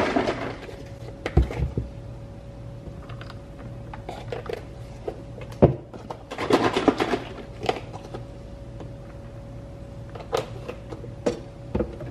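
Creamer poured from a carton into a glass of iced coffee, with cartons knocked down on a stone countertop several times. A faint steady hum runs underneath.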